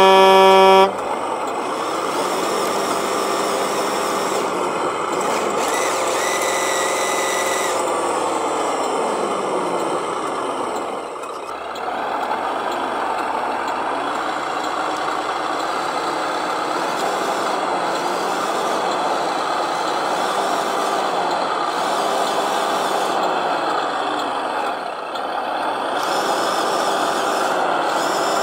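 Truck horn sounding for about a second at the start, then a truck engine sound running steadily, its pitch rising and falling back as it revs a few seconds in.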